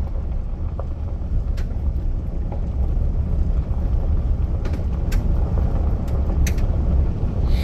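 Steady low rumble of a pickup truck's engine and tyres heard from inside the cab while driving on an unpaved road, with a few sharp clicks.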